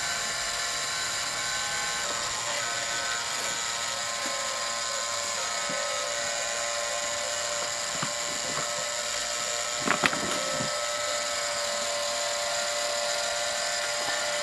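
Small electric rotisserie motor turning a spit, a steady high whine with a few faint clicks about ten seconds in.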